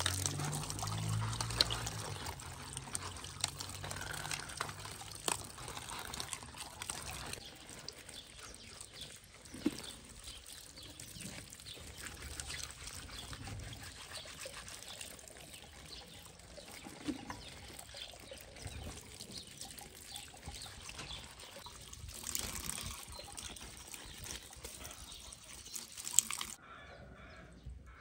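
Water running from a wall tap and splashing as lettuce leaves and herbs are rinsed under it, with small splats and drips; it stops abruptly shortly before the end.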